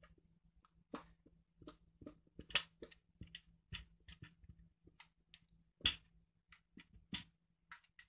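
Faint, irregular light clicks and taps, two or three a second, with two louder ones about two and a half and six seconds in, over a low steady hum.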